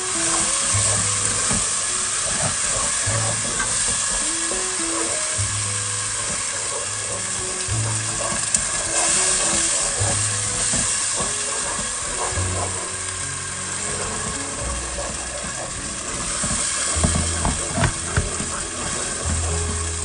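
Spiced onion masala with tomato purée sizzling in a pot while it is stirred with a wooden spatula, with scattered scraping clicks. Background music with low notes changing every second or two plays alongside.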